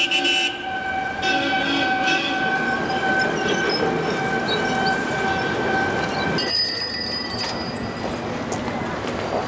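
City street traffic heard through a camcorder microphone: a steady background noise of vehicles, with a steady, even-pitched tone running over it. The tone stops abruptly about six and a half seconds in, where the sound changes at an edit.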